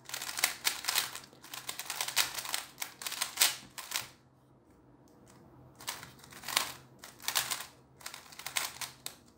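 GAN 356 X magnetic 3x3 speedcube being turned fast by hand: quick runs of clicking and clacking as the layers snap into place. The turning stops for about a second and a half in the middle, then starts again.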